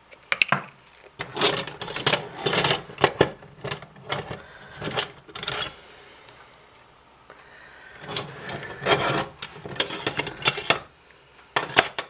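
Metal measuring spoon scooping and scraping inside a can of baking powder, with clinks of metal on metal. It comes in several short bouts with pauses between them, as the spoon is dipped and levelled for each teaspoon.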